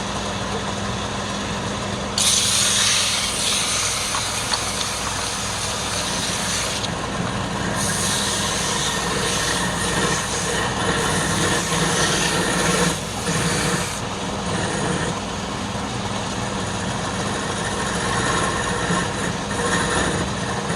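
A wood lathe's motor runs with a steady hum while a tool works the spinning wood, giving a loud scraping hiss. The hiss begins about two seconds in, breaks off briefly, then carries on until about two-thirds of the way through, with lighter touches after that.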